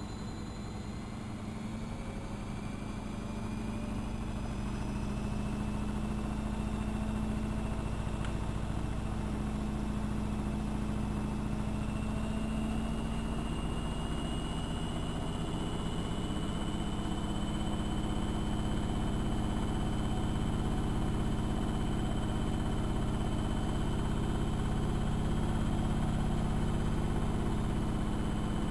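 AEG Electrolux Lavamat L6461 washing machine with its drum motor speeding up. A whine rises in pitch and the hum grows louder over the first several seconds, then holds steady at speed, as in a spin.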